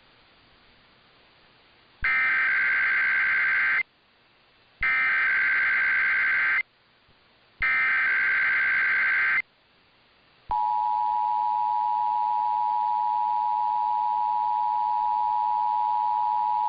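Emergency Alert System tones as broadcast on AM radio: three loud bursts of SAME header data, a shrill two-pitch digital warble, each about two seconds long with a second's gap between. About ten seconds in, the steady two-tone EAS attention signal starts and runs on.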